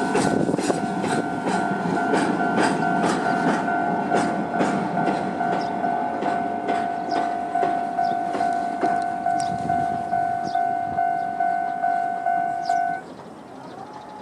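Japanese level-crossing alarm, the older-type standard electronic bell at a fast tempo, striking about twice a second. During the first few seconds a train runs past over the rails. The alarm cuts off abruptly near the end.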